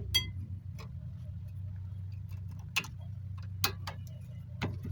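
Light metallic clicks and clinks of tools and brake parts being handled, about six at irregular intervals, over a steady low hum.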